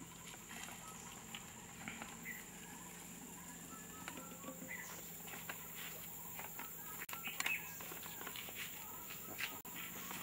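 Quiet outdoor ambience: scattered short bird calls over a steady high-pitched hum.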